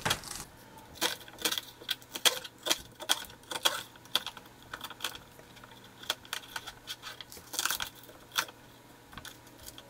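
Chef's knife chopping bok choy stalks on a plastic cutting board: irregular sharp knocks of the blade through the crisp stalk onto the board, about two a second.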